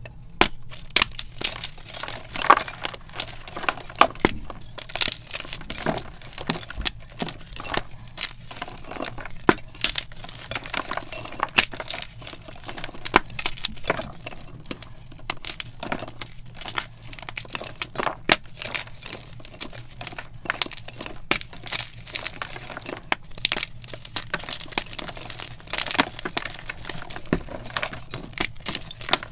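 Blocks of gym chalk crushed and snapped by hand: a dense, irregular crunching and crumbling, full of sharp cracks as the blocks break apart into powder.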